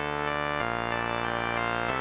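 Electronic dance music: sustained synthesizer chords, changing to new chords about half a second in and again near the end, with no drums.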